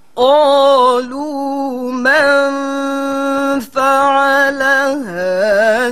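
A woman's melodic Quran recitation: a single voice starts about a quarter second in and holds long, ornamented notes with brief breaks. About five seconds in the pitch drops low and wavers back up.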